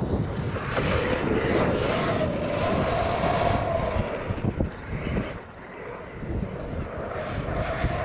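Arrma Outcast 8S 1/5-scale RC car's brushless electric motor whining as it drives across the beach sand, the pitch rising and falling with throttle. The sound fades about midway as the car runs far off, then comes back. Wind rumbles on the microphone.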